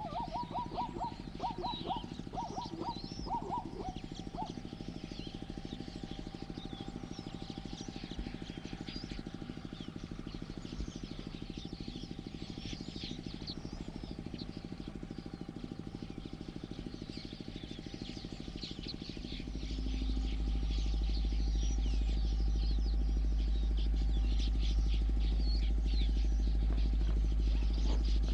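Small birds chirping and calling around a waterhole, with a run of quick repeated notes in the first few seconds. About two-thirds of the way through, a steady low rumble comes in and stays, louder than the birds.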